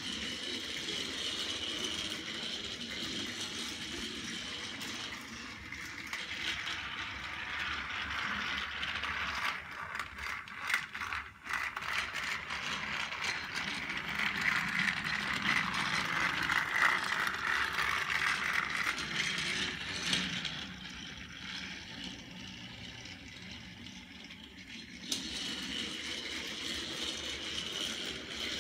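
Motorized Thomas & Friends toy engines Gordon and Winston running on plastic track: a continuous small-motor and gear whir with the wheels rattling and clattering over the track joints. It grows louder in the middle, when the trains pass close, then fades.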